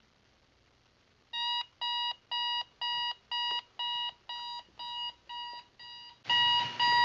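Digital alarm clock going off: short high beeps, about two a second, starting a little over a second in. Near the end the beeps get louder, with a rush of background noise behind them.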